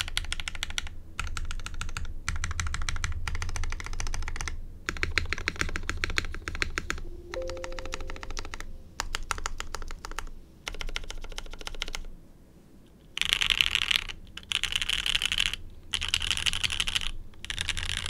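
Typing in bursts with short pauses on a CMG TKL v2 mechanical keyboard: lubed Gateron Oil King linear switches in an aluminium full plate on an o-ring mount, with CRP Tulip R4 keycaps and TX clip-in stabilizers. The last few seconds come in louder, brighter bursts.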